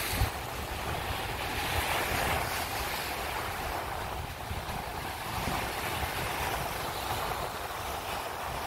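Sea waves washing and foaming over a rocky shore, a steady surf noise that swells about two seconds in, with wind buffeting the microphone and a brief thump right at the start.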